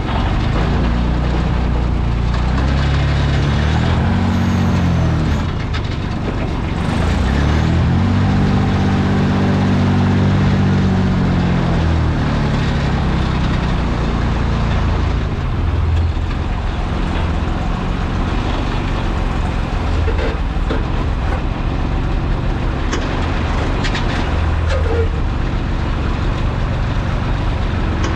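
Delivery truck's engine pulling away, its revs rising and dropping twice as it shifts up through the gears, then running steadily at road speed.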